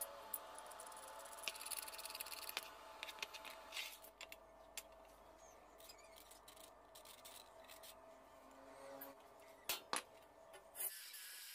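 Quiet handling of steel workpieces: light clicks and taps of metal parts, then the soft scratch of a paint marker tracing round a short steel pipe section set on a flat bar, with two sharper clicks near the end.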